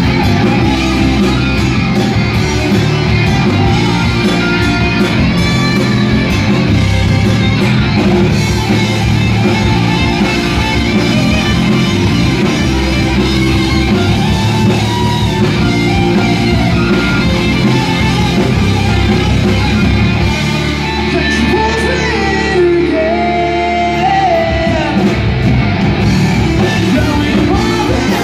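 Live rock band playing loud: distorted electric guitars, bass guitar and drums. The deepest bass drops away for a few seconds about two-thirds through, and sung vocals come in near the end.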